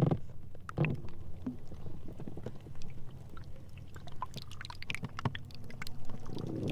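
Sea ice floes rubbing against each other: a scatter of crackles, clicks and short squeaks. A long pitched groan stops as it begins, and another starts near the end.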